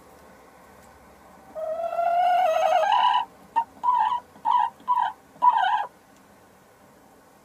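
Sussex hen calling while she sits on the nest to lay: one long call rising in pitch, then a string of five short calls.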